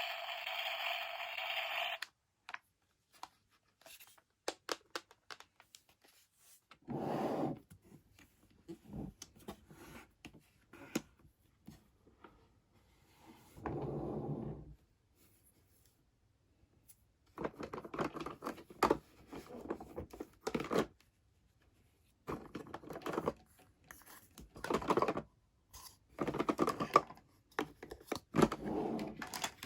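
Unboxing a miniature plastic toy kitchen set: small clicks and taps of plastic pieces, then repeated bursts of plastic packaging rustling and tearing, each lasting a second or so. A brief buzzy tone plays in the first two seconds and cuts off.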